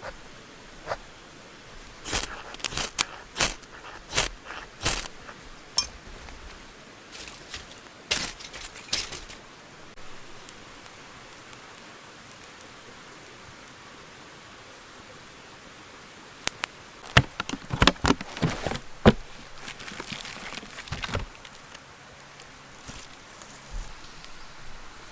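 Irregular sharp clicks and knocks in two clusters, a few seconds in and again past the middle, over a faint steady hiss.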